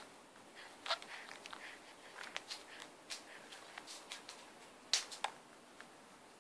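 A baby sucking and mouthing the padded front of a baby carrier: irregular small wet clicks and smacks, with a louder cluster of them about five seconds in.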